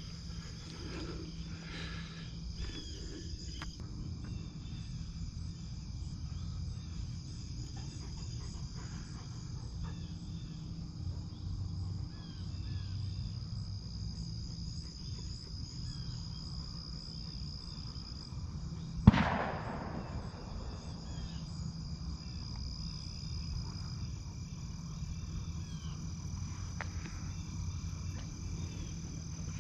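Steady evening insect chorus with high, even trilling and scattered small chirps. A single loud shotgun shot comes about two-thirds of the way through, with a tail that rolls away after it.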